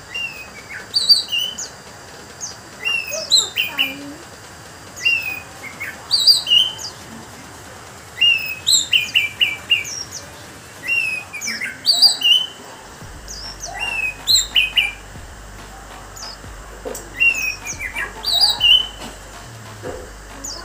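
Orange-headed thrush (anis merah) singing loudly: bursts of quick, high, slurred whistles, one phrase every two to three seconds with short pauses between.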